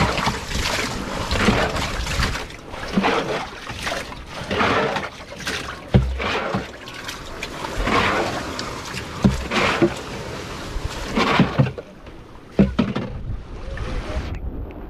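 Wind buffeting the microphone over small waves washing onto a sandy beach, with water sloshing in the flooded hull of a small wooden outrigger boat; gusty surges every second or so, easing off a little before the end.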